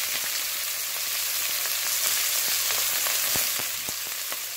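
Freshly added sliced onions sizzling steadily in hot oil in a pan, with a few scattered pops.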